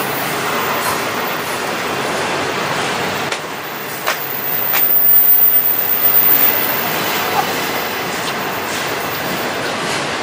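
A train passing: the steady rush and rumble of wheels on the rails, with a few sharp clicks a few seconds in.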